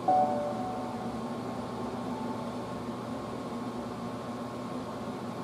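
Air conditioner running with a steady hum and hiss, and a short faint tone right at the start.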